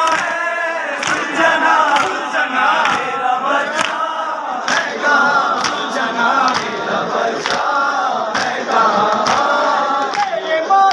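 A crowd of men chanting a noha, a Shia mourning lament, together while beating their chests in unison (matam). The strikes land as sharp slaps about once a second through the chant.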